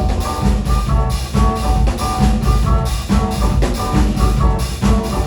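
Live band playing a song between sung lines: drum kit and bass keeping a steady beat, with a repeating pitched riff on top.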